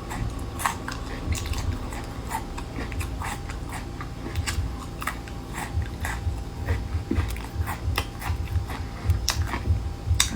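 A person chewing crunchy seafood close to the microphone, with irregular crisp crunches and crackles between bites.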